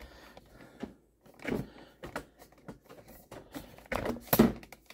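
Handling noise from a phone camera being moved and set down: scattered light clicks, knocks and rubs, with a louder cluster about a second and a half in and again near the end.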